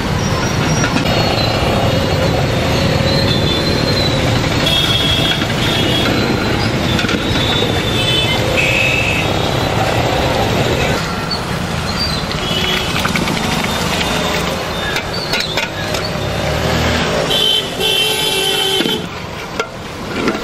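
Busy street traffic passing, with vehicle horns honking several times, the longest honk near the end.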